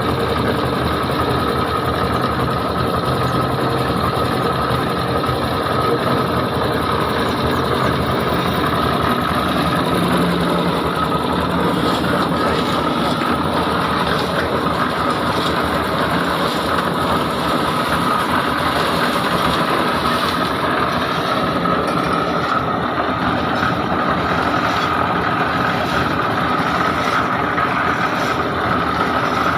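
An engine running steadily with an even drone and a constant whine, typical of construction machinery such as a mixer or truck.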